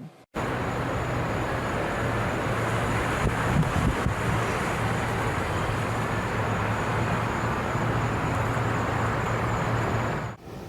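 Steady outdoor rushing noise, like wind on an open microphone or road traffic, with a low steady hum under it. It starts abruptly and cuts off shortly before the end.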